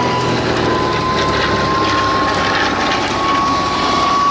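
The nine-cylinder Bristol Pegasus radial engine of a Fairey Swordfish biplane runs steadily at taxiing power with its propeller turning. A thin, steady whine sits over it and rises slowly in pitch.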